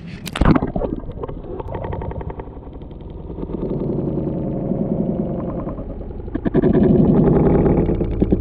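A splash at the water's surface about half a second in, then muffled, rumbling underwater noise picked up by the submerged camera in its housing, growing louder about six and a half seconds in.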